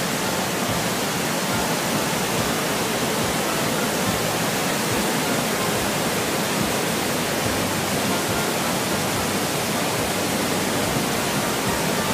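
Large waterfall pouring over rock steps close by, a steady, unbroken rush of falling and churning water.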